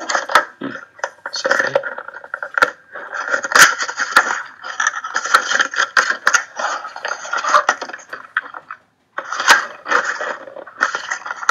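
Cardboard trading-card box being pried and torn open by hand: scraping, tearing and crackling of card and tape, with many sharp clicks. The sound breaks off briefly about eight and a half seconds in, then resumes.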